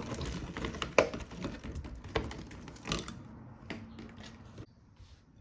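Berries being placed into a bowl of water: light rustling with a few sharp knocks and clicks, about four, as fruit and container touch the bowl, dying away about a second before the end.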